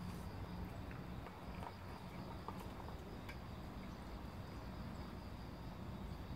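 Street cats eating wet food from a metal bowl: faint, scattered chewing and licking clicks over a steady low hum.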